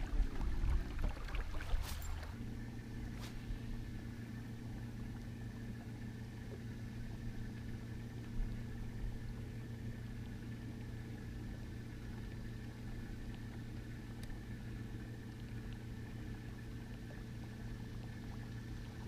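A steady motor hum of several fixed pitches that sets in about two seconds in and holds unchanged, after a few clicks and knocks.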